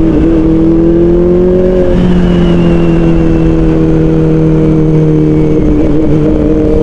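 Kawasaki Ninja ZX-4RR's 400cc inline-four engine running through an Austin Racing aftermarket muffler, cruising at steady revs. The revs dip slightly about two seconds in, then sink gently.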